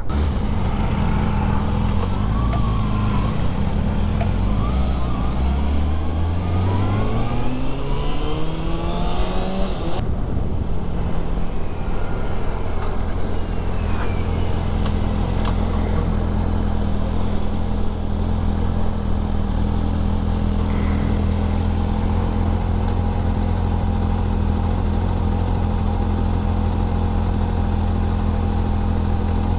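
Kawasaki Ninja ZX-6R's inline-four engine: a steady note at first, then revs climbing in one long rise for about six seconds as the bike accelerates. About ten seconds in the sound changes abruptly to a steady, even engine note that holds to the end.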